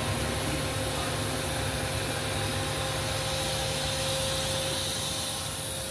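Steady whirring hum of a powered-up CNC milling machine's open control cabinet, with a thin steady tone over it: cooling fans and electrical hum from the running control electronics.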